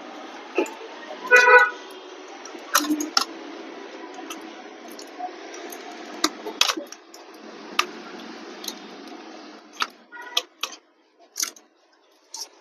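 Scattered sharp clicks and taps from laptop parts and tools being handled during disassembly, over a steady hiss. A short horn-like toot, the loudest sound, comes about a second and a half in.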